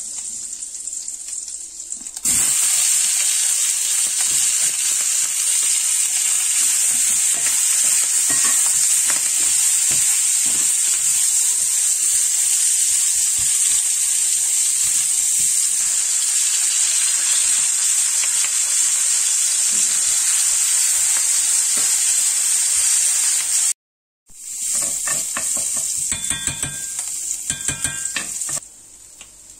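Food frying in a cast-iron skillet: a loud, steady sizzle starting about two seconds in as sliced bell peppers and red onion cook, stirred with metal tongs. After a brief break, chopped garlic sizzles in oil, with a metal spoon clinking against the pan a few times near the end.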